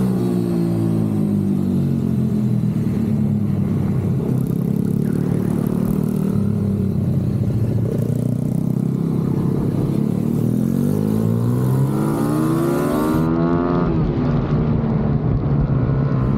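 Small four-stroke pit bike engine revving hard, its pitch rising and falling as it is worked through the gears and corners. About three-quarters of the way through the pitch climbs steeply to a peak, then drops sharply.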